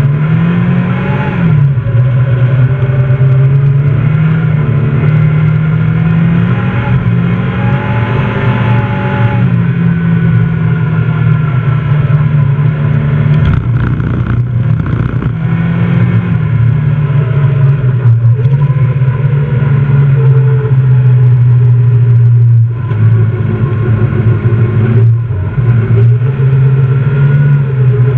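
Fiat Seicento rally car's engine, heard from inside the cabin, running at high revs under hard acceleration. Its pitch rises and falls, with several brief drops where the driver lifts off or changes gear.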